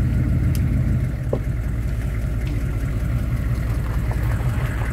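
GMC's 6.5-litre turbo-diesel V8 running steadily, a low even drone, with a few faint clicks over it.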